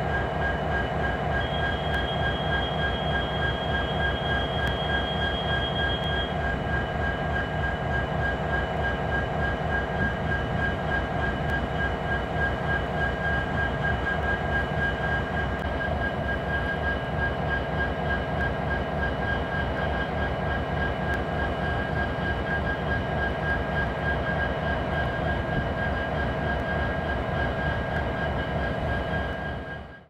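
Norfolk Southern EMD diesel-electric locomotive running steadily with an even, fast-pulsing engine throb and a steady high whine over it, briefly joined by a second, higher whine in the first few seconds. The sound fades out at the end.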